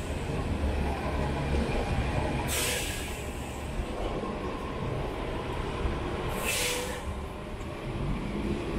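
City street traffic: a steady low rumble of heavy vehicle engines, with two short hisses of released air, about four seconds apart, typical of bus or truck air brakes.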